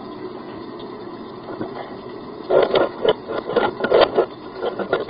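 Rapid, irregular knocking and scraping inside a drain pipe clogged with hardened grease. It starts about halfway through, over a steady low rumble.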